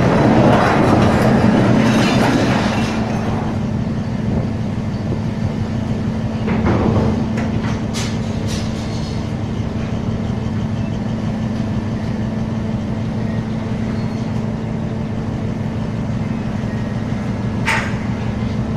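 A fishing trawler's engine and machinery running with a steady low hum, louder for the first few seconds. There are a couple of sharp metallic clicks.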